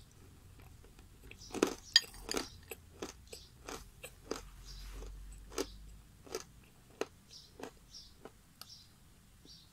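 Dry chunks of edible clay being crunched and chewed close to the microphone: a run of sharp crackling crunches that starts about a second and a half in, is loudest just after, and then thins out into softer, sparser crunches.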